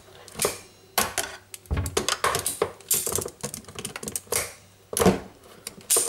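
Sharp metallic clicks and clinks from locking pliers (mole grips) gripping and working a spring hose clip off a dishwasher pump hose. A loud snap comes near the end as the clip comes free.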